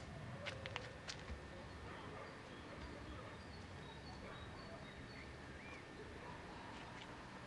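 Faint outdoor background with scattered short bird chirps, and a few sharp clicks about half a second to a second and a half in.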